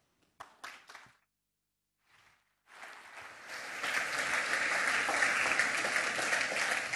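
Audience applauding, starting about three seconds in and quickly building to steady clapping.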